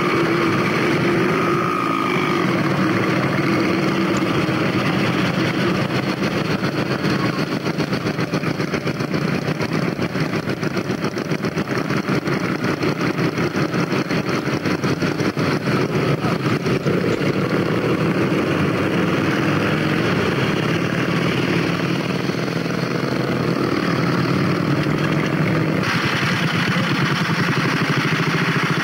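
Vintage motorcycle engines running with a steady, rapid firing pulse. The sound changes abruptly near the end.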